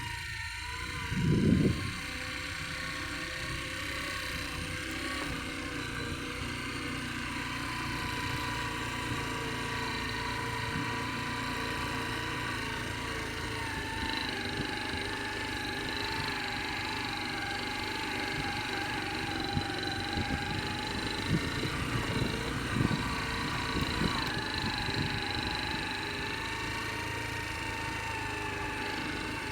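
Engine running steadily, its hum wavering slightly up and down in pitch, with a brief low thump about a second and a half in.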